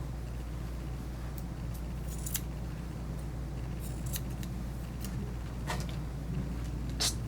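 Grooming shears snipping hair around a puppy's face: a series of short, sharp cuts at irregular intervals, the crispest near the end, over a steady low hum.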